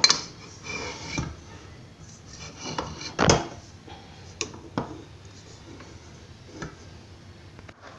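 Stainless steel stand-mixer bowl clanking and knocking as it is handled and lifted off the mixer base: a sharp clank at the start, a louder knock about three seconds in, then a few light clicks and taps.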